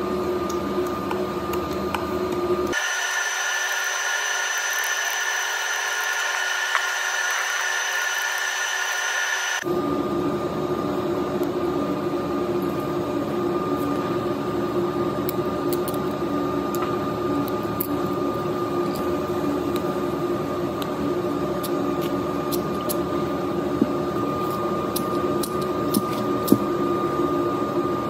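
A steady mechanical drone with a constant whine, like a motor running in a workshop. For several seconds starting about three seconds in, the low part drops out and a higher-pitched hum takes its place. Near the end come a few light clicks as a screwdriver scrapes grease off a hydraulic cylinder.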